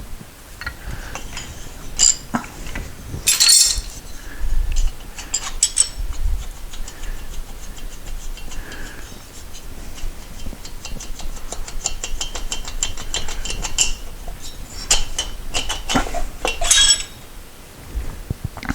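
Metal tools and engine parts clinking and knocking as a cylinder head is worked free of a 1973 Moto Guzzi engine, with a run of fast, even clicks about halfway through and a cluster of louder clanks near the end.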